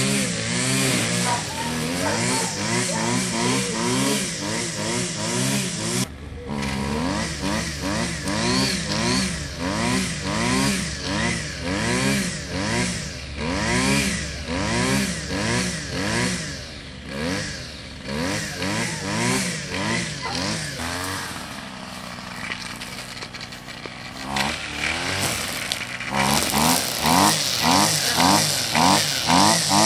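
Engine revved up and down over and over, rising and falling in pitch about once or twice a second, like a motorcycle being blipped. It dips briefly past the middle, then comes back in sharper, regular pulses near the end. It is a loud noise used to test a working dog's nerve.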